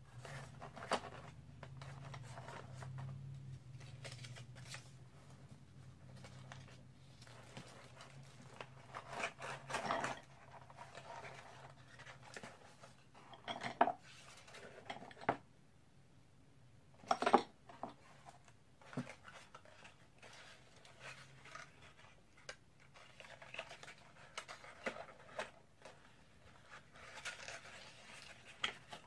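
Handling of plastic packaging and accessories from a GoPro Hero 10 Black box: irregular rustling, scraping and clicking of plastic, with sharper knocks about ten, fourteen and seventeen seconds in.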